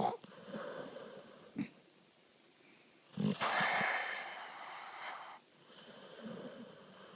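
Pit bull snoring in his sleep: wheezy, raspy breaths, a short one at the start, a loud one about three seconds in lasting around two seconds, then a quieter one near the end.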